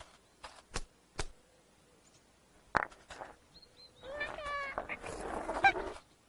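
A few soft taps, then about four seconds in a squeaky, warbling, animal-like call with quick upward flicks, followed by rustling.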